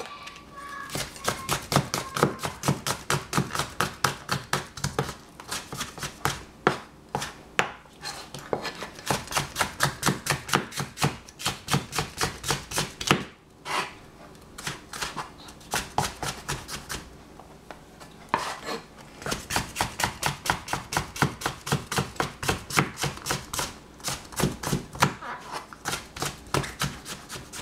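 Knife chopping capsicum (bell pepper), quick even strokes about four a second with brief pauses every few seconds.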